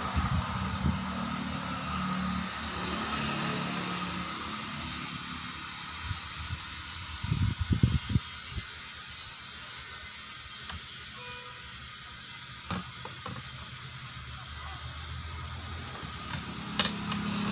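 Compressed air hissing steadily from an air hose fed through the valve hole of a truck tyre's steel rim. A few low thumps come about seven to eight seconds in.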